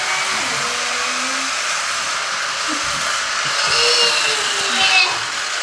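K'nex roller coaster's electric motor running, a steady whir as it drives the lift chain.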